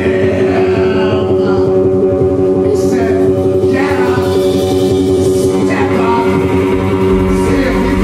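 Live rock band playing: electric guitars over held bass notes, with a male voice singing in places.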